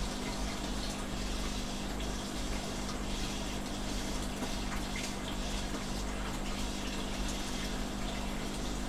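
Aquarium water bubbling and splashing steadily over a constant low hum.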